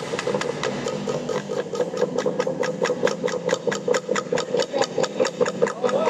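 Ensemble of wooden and bamboo tube percussion played together: sticks striking the tubes in a fast, even beat of about six strokes a second over a steady ringing drone.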